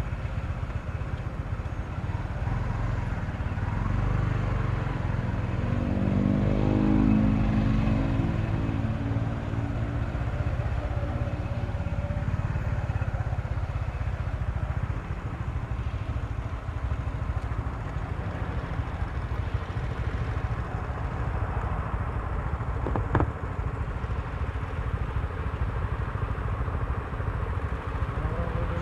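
Motorcycle underway on a road: steady engine and wind rumble. An engine note swells and fades about six to eight seconds in, and there is a short click near the end.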